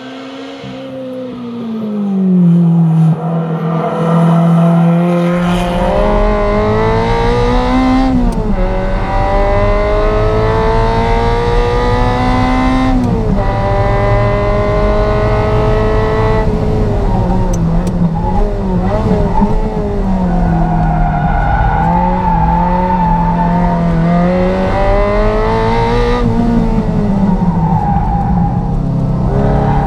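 Ferrari 348 Challenge's V8 engine under hard acceleration, rising in pitch through the gears with sharp drops at each upshift, and a stretch of wavering revs mid-way as the car slows for corners.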